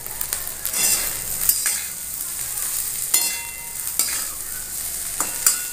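Metal spatula stirring and scraping potatoes and long beans in a steel kadai, over a steady sizzle of the vegetables frying. The spatula knocks sharply against the pan several times, each knock ringing briefly.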